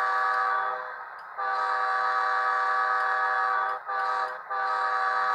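Sound-decoder diesel locomotive horn of a model F40PH, a multi-note chord played through the model's small speaker, sounding the grade-crossing pattern: a long blast that ends about a second in, another long one, a short toot and a final long blast. The decoder's diesel engine idle runs faintly underneath.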